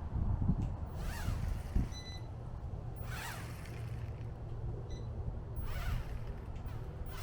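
Small electric motors of a SYMA TG1001 toy remote-control drone-car whirring in three short bursts, rising and falling in pitch, over a steady low rumble of wind on the microphone.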